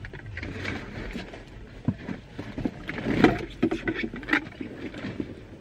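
A fabric backpack rustling and bumping as it is lifted and handled while someone climbs into a car seat, with irregular knocks, the loudest a little after halfway.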